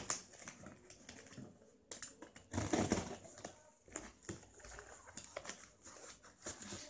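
A cardboard shipping box being cut and opened by hand: a box cutter slitting the packing tape, then the flaps pulled back and the foam packing handled. It comes as faint scrapes, rustles and scattered clicks, the loudest scrape about three seconds in.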